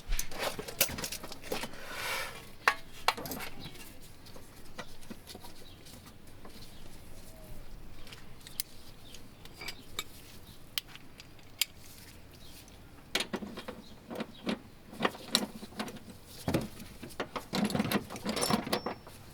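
Hand tools and steel suspension parts clinking and tapping irregularly while a long suspension bolt is worked loose, with busier clusters of clinks at the start and again over the last several seconds.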